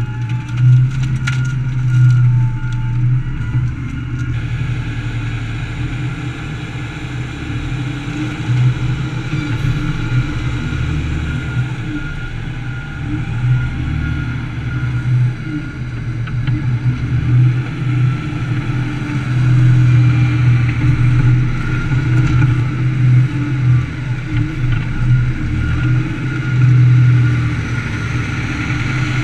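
Heavy diesel engines of a wheel loader and a 540 hp Bandit Beast 3680 horizontal grinder running under load, a deep drone that swells and eases every few seconds as the grinder shreds sawmill offcuts. A few light knocks in the first few seconds.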